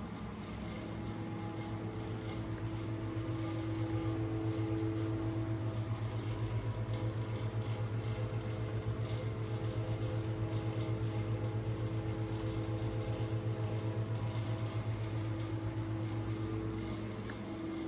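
Steady low machine hum with several held tones and a fast, even pulse in it, growing louder through the middle and easing off near the end.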